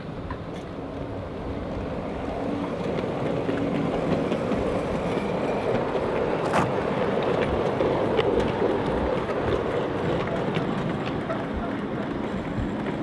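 Gauge 3 model train running past on the garden railway track, its wheels rumbling on the rails, growing louder to a peak about two-thirds of the way through and then fading. A single sharp click about halfway through.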